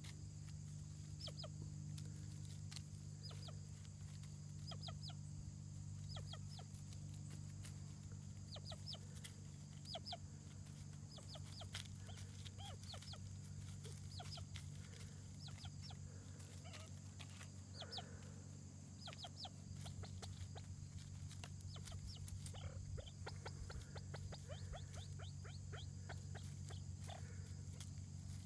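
Ruffed grouse giving short clucking calls at irregular intervals, over a steady low hum.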